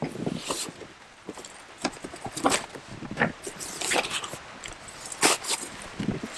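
Cardboard shipping box being cut open along its packing tape and its flaps pulled apart: irregular scrapes, rustles and knocks of cardboard, the loudest a little past five seconds in.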